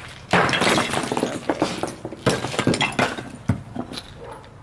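Dry brush and roots crackling and snapping as they are broken up by hand, in two bouts of dense crunching, with a sharp knock at the end of the second.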